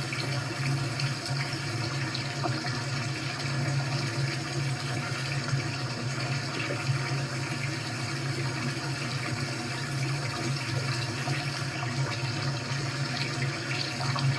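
Recorded sound of running water, like a running tap, played back from a video through computer speakers: a steady rushing noise with a low hum under it.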